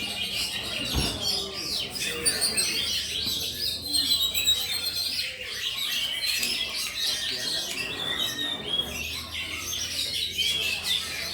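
Oriental magpie-robins (kacer) singing in competition. Several birds sing at once in a dense, unbroken tangle of quick chirps, whistles and trills.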